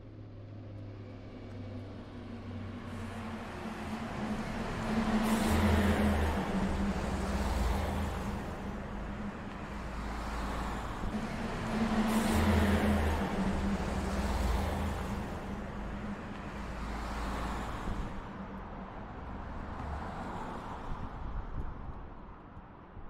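Road traffic: a low engine hum with several vehicles passing one after another, each swelling and fading, the loudest passes about a quarter and halfway through.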